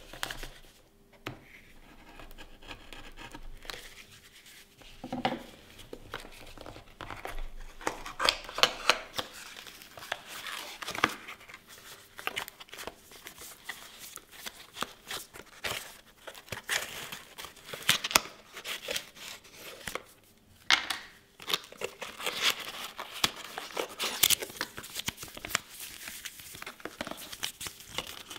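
Cardboard packaging and paper being handled and pulled open: irregular crinkling, rustling and tearing of thin card, with short sharp clicks. It is sparse for the first several seconds, then busier.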